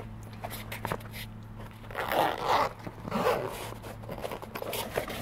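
Zipper on a fabric tool case being pulled shut in two strokes, with handling rustle and a few light clicks.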